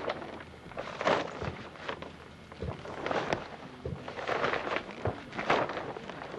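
Heavy canvas rustling and flapping in irregular bursts as it is handled among rigging ropes, with a dull thump every second or so.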